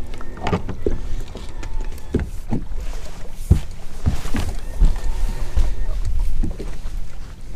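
Wind noise on the microphone, with small waves slapping irregularly against the hull of a bass boat.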